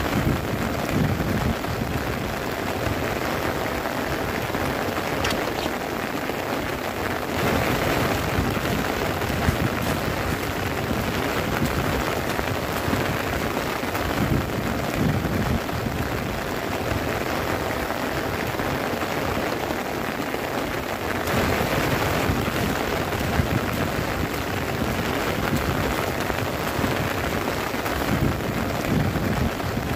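Heavy rain falling on the tent fabric, heard from inside the tent: a steady hiss that swells louder about seven seconds in and again about twenty-one seconds in.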